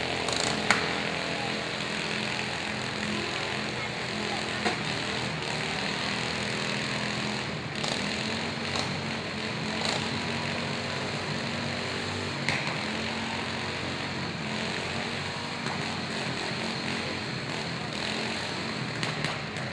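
Several riding lawn mower engines running at once, with sharp knocks now and then as the mowers crash into each other. The loudest knock comes under a second in.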